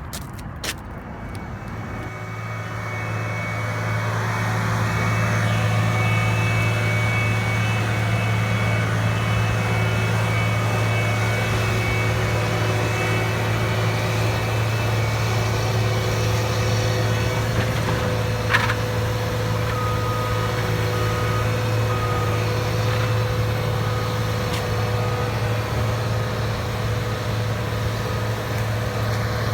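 Caterpillar AP655D asphalt paver's diesel engine running, growing louder over the first few seconds and then holding a steady hum. A few clicks sound right at the start.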